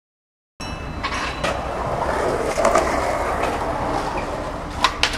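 Skateboard wheels rolling over pavement, a steady rumble that starts suddenly about half a second in, with a few sharp clacks, two close together near the end.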